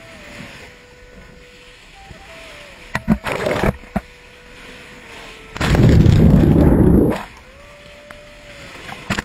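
Rushing wind and sea noise with a faint hum that shifts in pitch, broken by a short loud rush about three seconds in and a longer, louder low rumbling blast around six seconds in, as lava pours into the sea.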